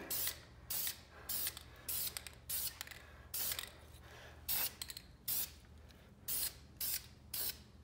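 Aerosol spray paint can hissing in a series of about ten short bursts as a light black base coat is dusted onto a brake caliper.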